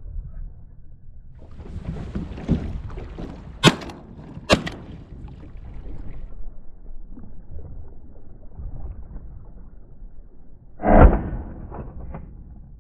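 Wind and choppy water lapping at a small layout boat, a steady low rumble, with two sharp clicks about a second apart early on and a loud dull thump followed by two lighter knocks near the end.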